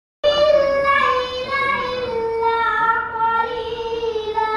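A young girl reciting the Quran in a melodic chant, holding long drawn-out notes that step slowly downward in pitch. The voice starts abruptly about a quarter of a second in.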